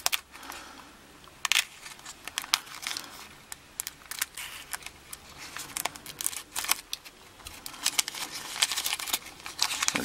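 Brown paper package wrapped in clear tape being cut and torn open with a knife blade: irregular crinkling, crackling and tearing of the paper and tape.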